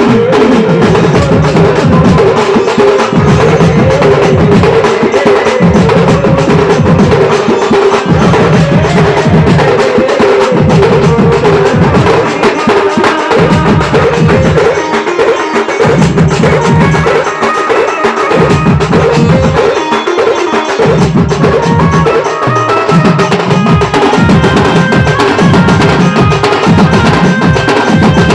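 Devotional instrumental music with a steady drum beat and wood-block-like percussion over a held melody line.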